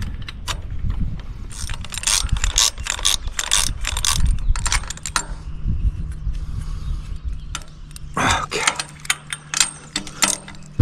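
Ratchet wrench clicking in quick runs, with metallic rattles of hardware, as antenna mounting bolts are tightened on the tower mast. A low steady hum joins about halfway through.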